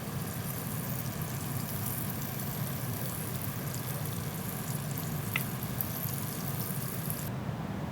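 Stream water flowing steadily with an even rushing noise; near the end its higher hiss drops away abruptly.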